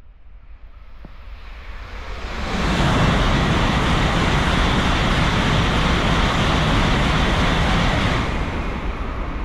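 Tokaido Shinkansen bullet train passing through a station at high speed without stopping: a loud rushing noise builds over about two seconds, holds steady for about five seconds while the cars go by, then falls away near the end as the train clears.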